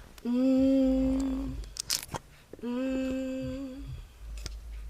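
A man humming a steady held note twice, each about a second long, the second dipping slightly at its end, as he tries to find the key to sing in. A sharp click falls between the two notes.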